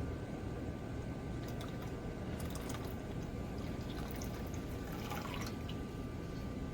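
Liquid trickling and dripping, with scattered small crackles and clicks about one and a half to five and a half seconds in, over a steady low hiss and hum.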